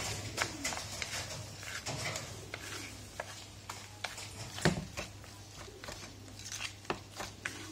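Chopsticks stirring and tossing diced aloe vera with sugar in a bowl: irregular light clicks and taps of the chopsticks against the bowl, with one louder knock about four and a half seconds in.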